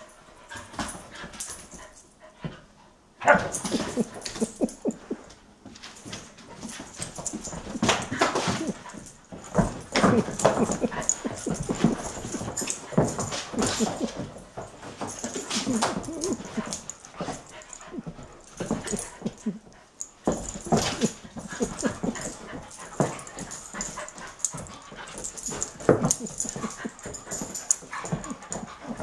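A collie and a Belgian Tervuren puppy play-fighting, their dog vocal sounds coming in quick, irregular bursts, with a brief lull about two to three seconds in.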